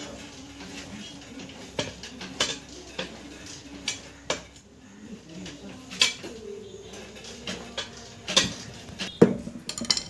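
Steel tyre levers clinking and scraping against a motorcycle's alloy wheel rim as the tyre is prised off the rim to mend a puncture. The clinks are sharp, irregular and metallic, and the loudest come near the end.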